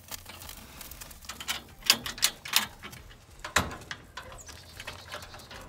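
Tumbleweed fire starters and charcoal crackling as they catch in a smoker's charcoal hopper: irregular sharp cracks and pops, the loudest about two seconds in.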